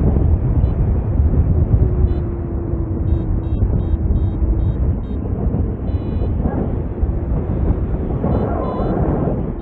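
Wind rushing and buffeting on the microphone in paraglider flight, a loud steady low rumble. Short faint high beeps sound now and then over it.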